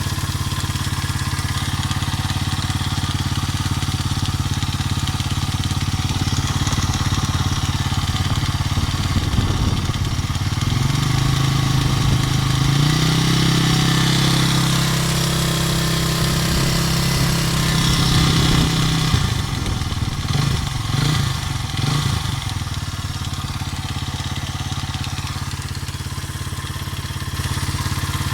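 Racer Forester RC200LT motorcycle's single-cylinder four-stroke engine idling. It is held at higher revs from about ten seconds in for roughly eight seconds, then drops back unevenly to idle. The engine has a knock whose cause the owner is trying to find.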